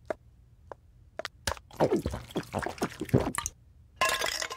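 Cartoon sound effects of a soda drink: a few light clicks, then liquid sounds for about a second and a half, and a short hissing burst near the end.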